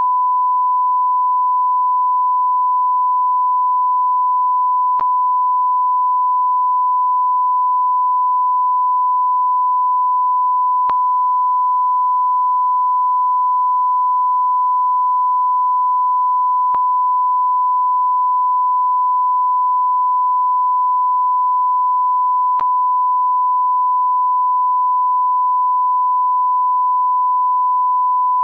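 Continuous electronic sine tone held at one steady pitch near 1,000 Hz, with no change in level, and a faint click about every six seconds.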